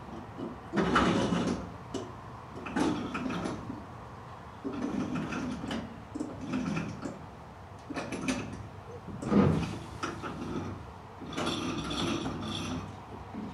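Rope running through the pulleys of a canoe hoist as it is hauled in, in about seven separate pulls with short pauses between, lifting the canoe's weight.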